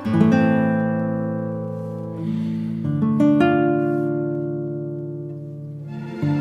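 Background music: slow guitar chords struck and left to ring out, a new chord about every three seconds.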